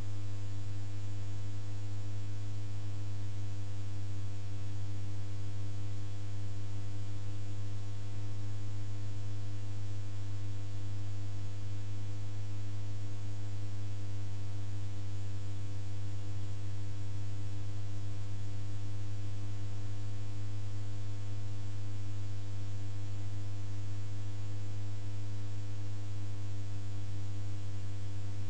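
Steady low electrical hum with hiss and many faint higher tones over it, never changing.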